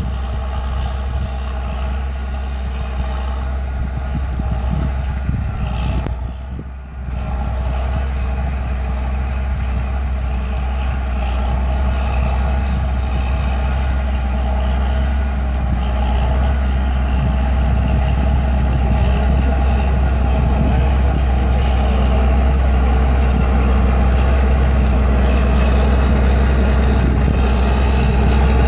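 Massey Ferguson 8690 Dyna-VT tractor's six-cylinder diesel engine running steadily under load while dragging an implement through dry soil. It grows gradually louder as the tractor approaches, with a brief dip about a quarter of the way through.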